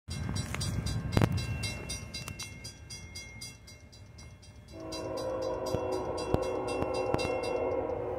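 Grade-crossing bell ringing rapidly and evenly, with a sharp thump about a second in. A little before the five-second mark the approaching CSX ET44AH locomotive's horn comes in with a steady multi-tone chord and holds, sounding for the crossing.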